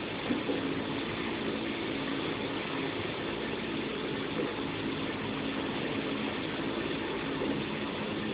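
Steady mechanical hum of a running machine, with a couple of steady low tones that do not change.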